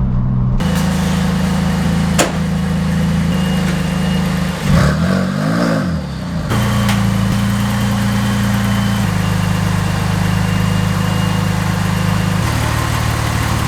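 Porsche 996 Turbo's twin-turbo flat-six running steadily as the car is driven, its pitch shifting in steps, with one rev rising and falling about five seconds in. A sharp click sounds about two seconds in.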